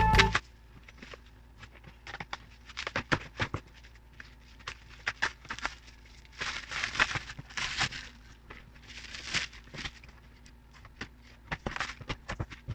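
Packaging being handled while an air fryer is unboxed: plastic wrapping crinkling and rustling in short spells, among scattered clicks and knocks.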